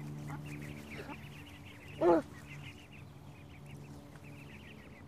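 A brood of ducklings peeping constantly, many quick high peeps a second, with one short, louder wavering call about two seconds in.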